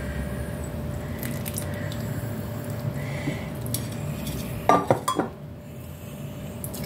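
A stainless steel saucepan pouring chocolate glaze over a cake in a glass dish, against a low steady hum; about five seconds in, a quick run of sharp metal clinks and knocks as the pan touches the dish.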